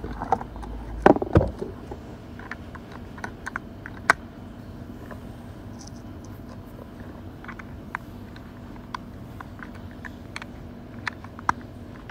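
Light clicks and knocks of hard plastic as a battery-powered toy car is handled and its battery cover fitted, with a louder cluster of knocks about a second in.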